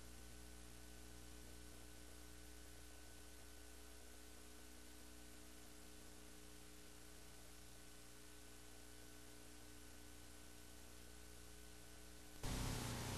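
Faint, steady electrical mains hum with hiss on a videotape soundtrack. Near the end it jumps suddenly louder and noisier.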